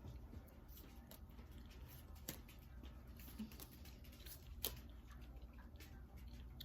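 Faint scattered clicks and rustles of a Pokémon card booster pack and its cards being handled, the sharpest click about four and a half seconds in, over a low steady hum.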